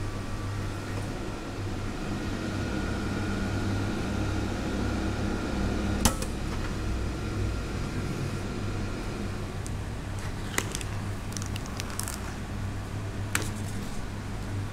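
Steady hum of a hot-meal vending machine heating a packaged meal, with a faint high whine in the first half. A sharp click about six seconds in, then a few lighter clicks near the end.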